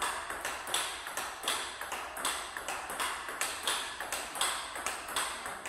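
Table tennis play: a plastic ball being struck by a Nittaku Acoustic 5-ply wooden blade with Hurricane 3 Neo rubber and bouncing on the table. Sharp clicks come in a steady rhythm, two to three a second.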